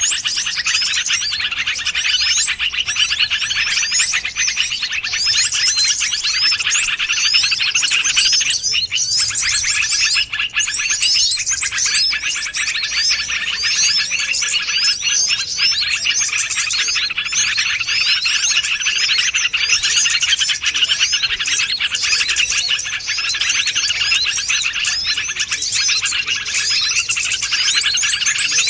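Dense chorus of many small wild birds chirping and twittering at once, a continuous mass of overlapping high calls: a bird-lure (pikat) recording meant to draw wild birds in.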